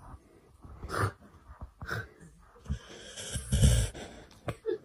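A pet's noisy breathing: a few short breaths, then a longer, louder one about three and a half seconds in.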